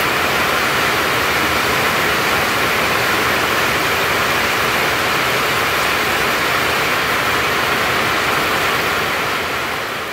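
Heavy rain pouring down: a loud, steady hiss of falling water that fades out near the end.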